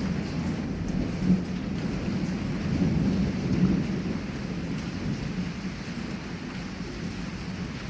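Heavy rain pouring steadily with a long low roll of thunder that swells about three seconds in and eases off toward the end.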